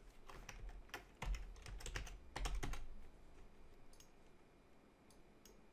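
Computer keyboard typing: a quick run of key presses for about three seconds, then a few scattered clicks.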